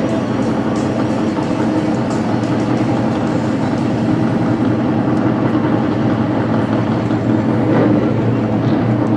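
Stock car engines running on the speedway, a loud steady drone with no break.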